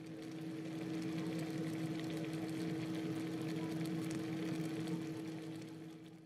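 Steady motor hum with a constant tone and a hiss, rising over the first second and fading out near the end.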